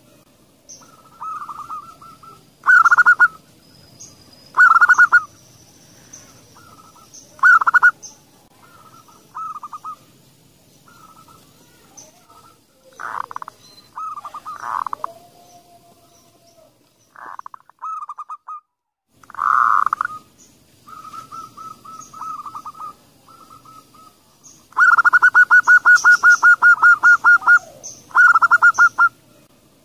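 Zebra doves (perkutut) calling: short bursts of rapid staccato cooing notes repeated every couple of seconds, with a longer run of quick notes near the end.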